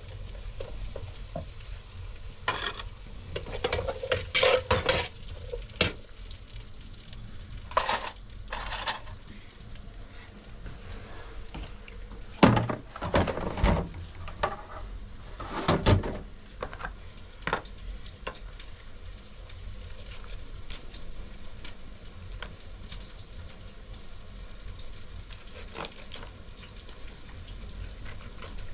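Scattered clatters and knocks, in clusters in the first half, over a steady hiss.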